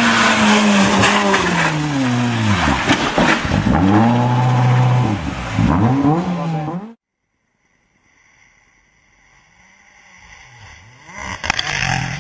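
Rally car engine revving hard, its pitch falling and rising again and again as it shifts gear and lifts for corners, until it cuts off abruptly about seven seconds in. After a moment of silence another rally car is heard approaching, growing louder and passing close near the end.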